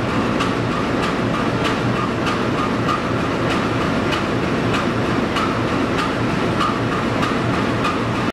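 GE U18C (CC 201) diesel-electric locomotive idling, its eight-cylinder GE 7FDL diesel running with a steady drone. A sharp click repeats about three times every two seconds.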